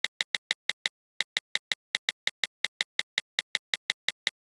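A fast, even run of identical short clicks, about six a second, with a brief break about a second in.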